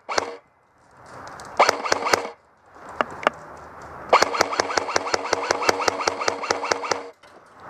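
Airsoft gun firing on full auto, a steady motor whine under rapid, evenly spaced shots: a short burst about a second and a half in, two single shots about three seconds in, then a long burst of about three seconds.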